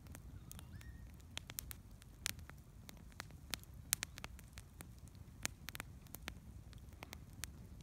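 Wood campfire crackling: irregular sharp pops and snaps from burning logs over a low, steady rush of flame, with the loudest pop about four seconds in.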